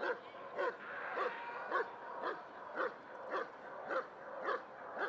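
Male German Shepherd Dog barking steadily at a helper holding a padded protection sleeve, as in a hold-and-bark, with short barks at an even rhythm of about two a second.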